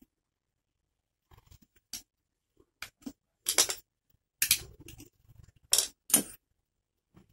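Handling noises from a removed indoor AC fan motor being worked on by hand: short, sharp metallic clicks and scrapes, a few scattered and the loudest several clustered in the second half.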